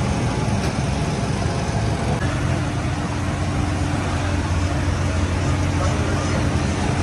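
Steady roadside traffic noise, with a low steady hum joining about two seconds in.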